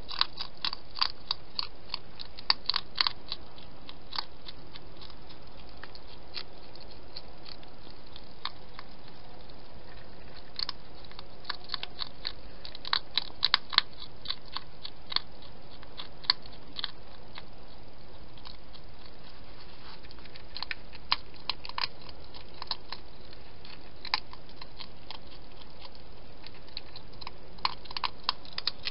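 Wild hedgehog eating, chewing with clusters of sharp crunches separated by pauses, over a steady faint hiss.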